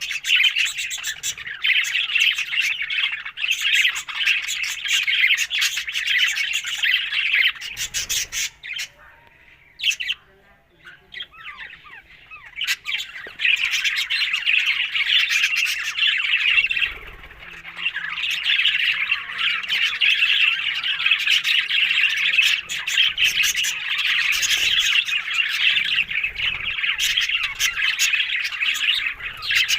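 Pet parrots chattering and squawking in a dense, continuous warble. It drops away about eight seconds in and picks up again around thirteen seconds.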